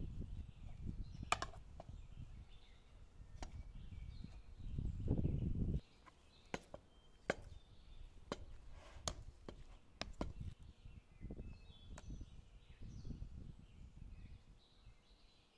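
A metal hand potato masher is pressed into boiled potatoes in a bowl. Dull squashing thumps run for about the first six seconds and stop suddenly. After that come scattered sharp clinks of the masher striking the bowl.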